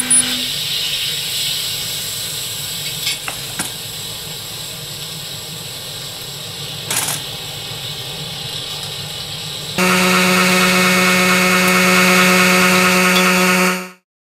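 Electrical kitchen appliances running: a steady hiss with a few short clicks, then about ten seconds in a much louder, steady buzzing hum starts and stops abruptly about four seconds later.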